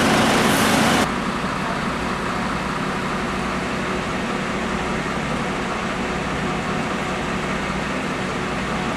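Fire trucks' diesel engines running at idle with a steady low hum; the sound drops suddenly to a quieter level about a second in and then holds steady.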